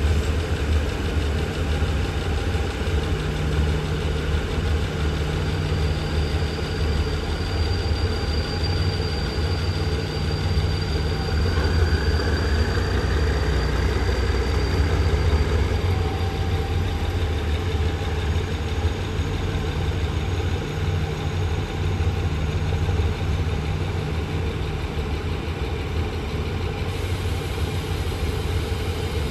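Diesel locomotive engine running with a steady low drone while the train moves slowly through the yard; a faint high whine comes and goes above it.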